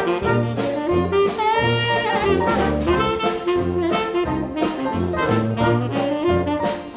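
Background music: an upbeat jazz tune led by brass horns over a walking bass line and a steady beat.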